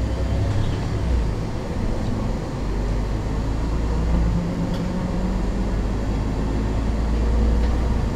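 MAN NL 273 Lion's City city bus engine running, heard from inside the bus as a steady low rumble that grows slightly louder near the end.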